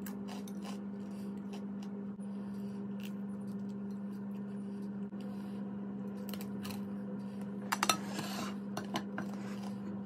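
Ceramic dinner plates clinking and clattering as they are gathered and stacked: a quick cluster of clatters about eight seconds in and one sharp knock at the very end, over a steady low hum.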